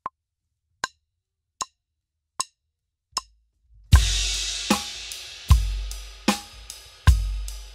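A metronome click sounds a little under once a second, and sharper stick clicks join it on the last few beats as a count-in. About four seconds in, a drum kit comes in with kick drum, snare, hi-hat and cymbal struck together in unison, playing 16th-note permutations against the click, with the cymbals ringing between strokes.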